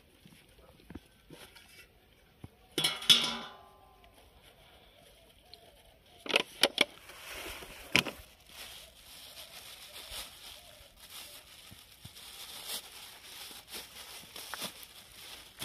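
Thin plastic bag crinkling and rustling as it is handled and opened over a metal plate, preceded by a few sharp clicks. A short, loud voice-like call about three seconds in is the loudest sound.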